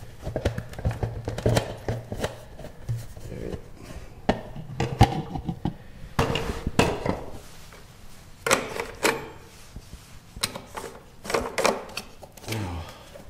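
Irregular clinks, taps and knocks of hand tools and small metal parts being handled while a small engine's carburetor is taken apart.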